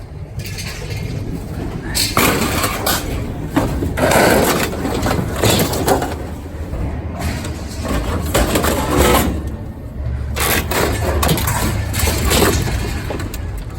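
Scrap metal being unloaded and thrown onto a pile: repeated clattering bangs and knocks, with a low steady rumble underneath.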